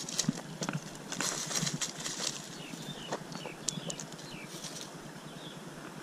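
Scattered light taps and rustling of movement in grass on a concrete path, with several short, falling, high-pitched chirps in the middle.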